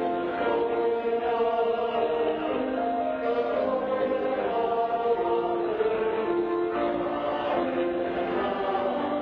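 Church singing: a small group of voices singing a slow sacred hymn in long held notes that move from one pitch to the next about every second.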